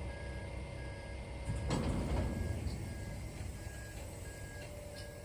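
Truck backup alarm beeping steadily, a little over once a second, over a running truck engine, with a louder rush of noise about two seconds in: the truck is reversing.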